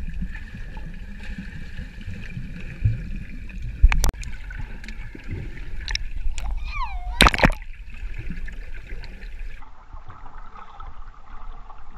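Underwater sound from a camera submerged in a swimming pool: muffled, rumbling water and bubble noise from swimmers moving close by, with sharp knocks or splashes about four and seven seconds in.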